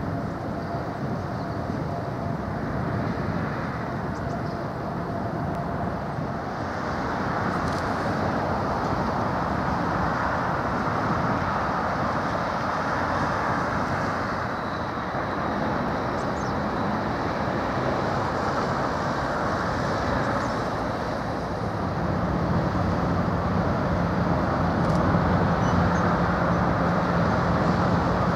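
Steady outdoor background rumble of distant machinery and traffic. A low steady hum joins in near the end, and the whole sound grows slightly louder.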